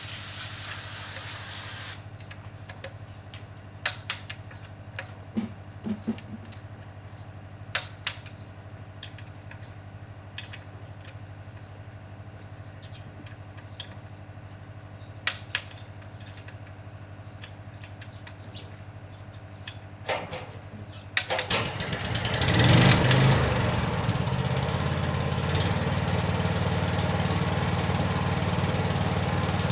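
A short hiss of air, then scattered sharp metallic clicks and taps over a low hum. About two-thirds of the way in, a motor starts up with a swell and then runs steadily.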